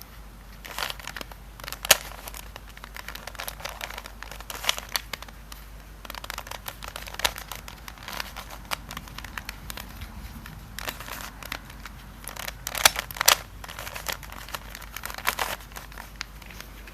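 Plastic Fisher cube's layers being turned by hand: a run of irregular clicks and clacks, with a few sharper snaps about two seconds in and again around thirteen seconds.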